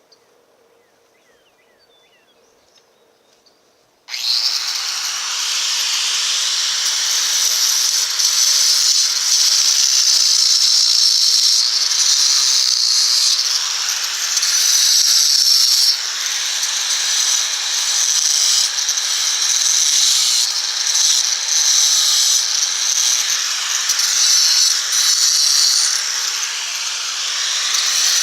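A power grinder cutting into stone switches on suddenly about four seconds in and grinds loudly and steadily, its level dipping and rising as it bites.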